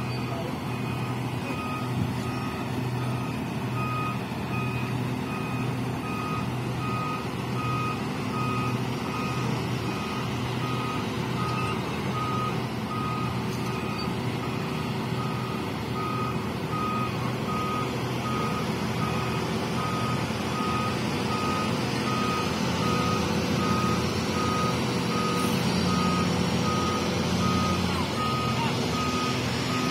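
Volvo EC950E crawler excavator's travel alarm beeping steadily, about two beeps a second, over the steady running of its diesel engine.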